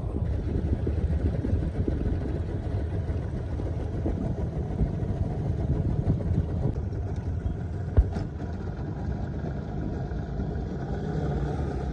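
Small boat's outboard motor running slowly as the boat moves out to the shrimp nets, a steady low rumble. A single sharp knock about eight seconds in.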